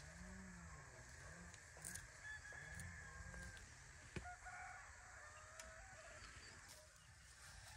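Faint farmyard birds: a run of low, repeated cooing calls in the first few seconds, then chicken clucks with a rooster crowing in the distance about halfway through.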